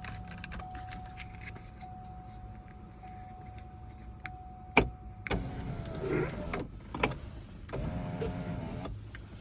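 A thin steady tone for about five seconds, a sharp click, then the Cadillac Escalade's electric sunroof motor running as the roof panel moves. The replacement switch is working the sunroof.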